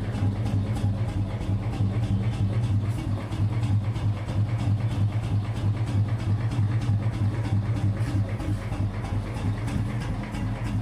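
Royal Enfield Bullet 350 single-cylinder engine running steadily at idle, its exhaust giving an even, repeating thump through an aftermarket Indori filter silencer with a free-flow bend pipe.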